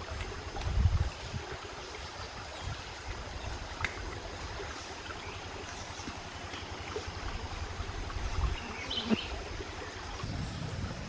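Shallow rocky forest stream trickling, over a steady low rumble, with a few faint taps of bare feet on stones.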